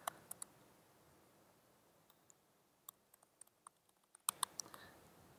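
Computer keyboard being typed on, faint: a few key clicks, then scattered keystrokes, then a quick run of several keys near the end, as a terminal command is entered.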